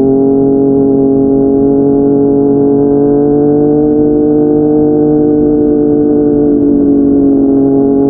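Yamaha MT-09's inline-three engine through a Yoshimura R55 slip-on exhaust, pulling steadily in one gear. Its pitch creeps up for the first few seconds, then eases back a little.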